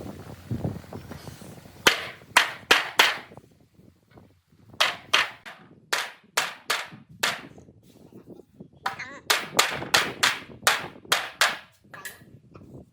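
Hammering on wood: sharp knocks at about three a second, in three runs with short pauses between them.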